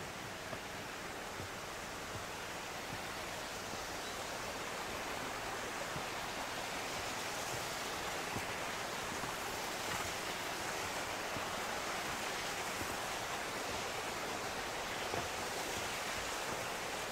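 Steady rush of running water, like a mountain stream, growing gradually louder.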